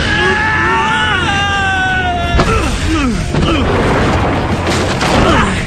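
Anime fight sound effects over a held high musical note: a heavy thud about two and a half seconds in, then crashing and clattering as the fighters go into the furniture, with short falling grunts.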